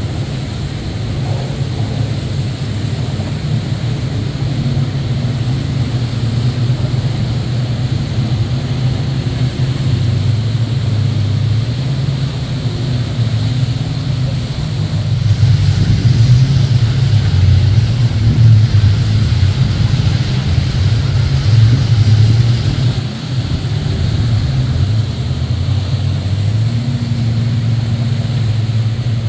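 Jet ski and boat engines droning steadily over the rush of churned wake water, the water noise louder for several seconds past the middle.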